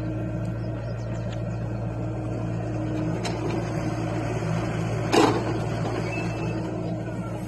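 John Deere 60G compact excavator's diesel engine running steadily while the machine works. About five seconds in comes one sharp clank.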